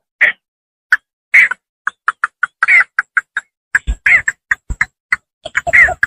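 Cinnamon bittern calls from a hunting lure recording: short clucking notes repeated irregularly, with a few louder, longer calls that fall in pitch. The notes come faster after about halfway, with a few low thumps among them.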